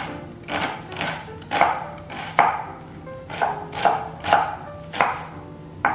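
Kitchen knife chopping an onion on a cutting board: sharp, uneven knocks about two a second.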